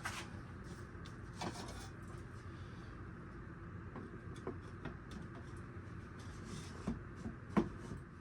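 Scattered light knocks and clicks of wood and small hardware being handled on a workbench, over a steady low hum.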